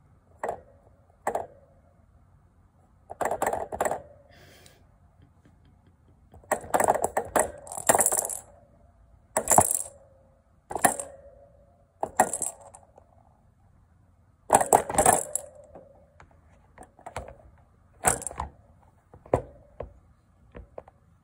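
A small cat toy clinking and rattling in about a dozen short, irregular bursts as a kitten swats and bites at it.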